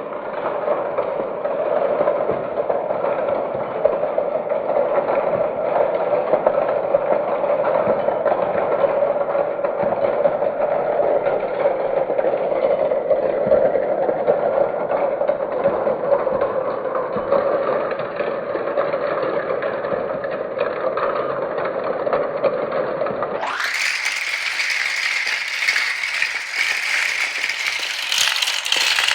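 Marbles rolling and clattering down a marble-run track, a continuous dense rattle. About 23 seconds in, the sound switches suddenly to a brighter, thinner rattle of balls on the track.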